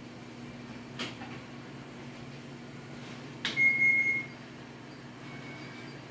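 A kitchen appliance gives a sharp click and then a short, high electronic beep, followed by a fainter beep a second or so later, over a steady low hum.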